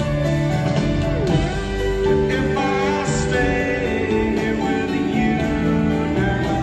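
Live rock band playing a slow instrumental passage, led by electric slide guitar whose notes glide up and down over sustained chords.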